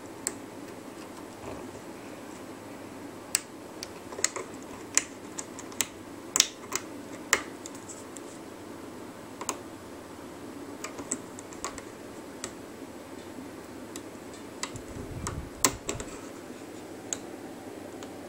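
Irregular light clicks and taps of a plastic hook tool and rubber bands working on the pegs of a plastic band loom, over a faint steady background hum; a brief low rumble comes about three-quarters of the way through.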